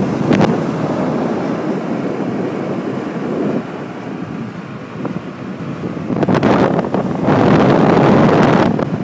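Wind buffeting the microphone from a moving golf cart, over the cart's running and rolling noise. The buffeting gets louder from about six seconds in.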